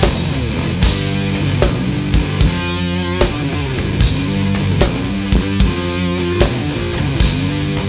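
Bass-heavy music with deep sustained bass notes and a steady drum beat.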